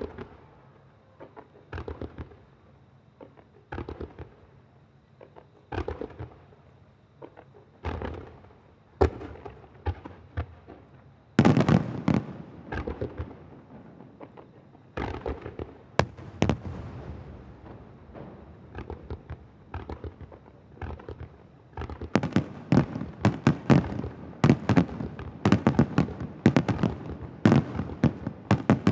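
Aerial firework shells bursting in a starmine display: single bangs about two seconds apart at first, a loud cluster a little over a third of the way in, then a rapid barrage of bursts through the last quarter.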